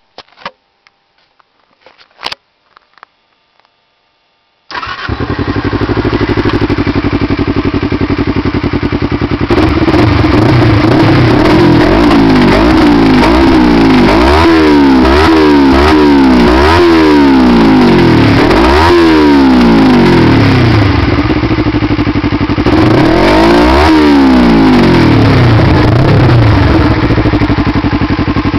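Kawasaki Ninja 250R parallel-twin engine breathing through a full Tyga exhaust system: after a few faint clicks, the engine starts about five seconds in and idles. From about ten seconds on it runs louder and is revved several times, the pitch rising and falling with each blip, and revved once more near the end before settling.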